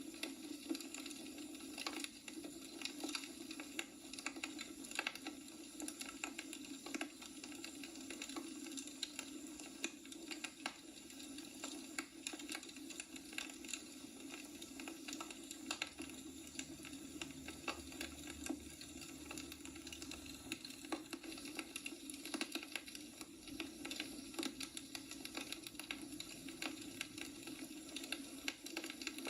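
Wood fire burning in a fireplace, logs crackling with many irregular small pops and snaps over a steady low hum.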